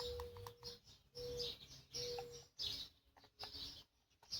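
Birds chirping in the background, with three short steady tones about a second apart in the first half.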